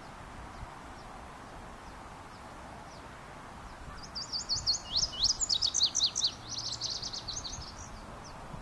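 Male indigo bunting singing one song about halfway through: a run of quick, high, sweeping notes that speeds up into a rapid trill near the end.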